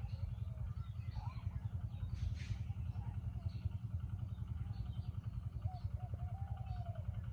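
An engine running steadily with a rapid, even low chugging, while small birds chirp faintly over it.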